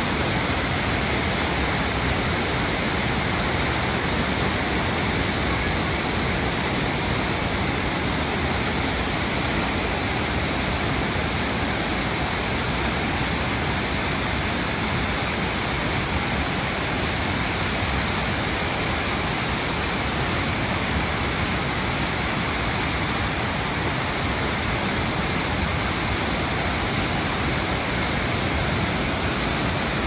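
Monsoon-swollen waterfall in full flood, a torrent of white water pouring over a rock face with a steady rushing roar.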